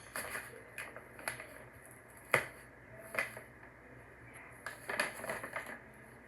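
A bag crinkling and rustling in short, scattered crackles as a cat moves inside it and another tugs at it, with one sharp snap about two and a half seconds in and a cluster of crackles near the end.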